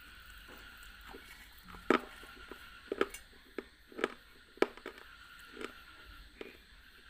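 Close-miked eating: a series of sharp crunchy bites and chews, roughly one a second, starting about two seconds in.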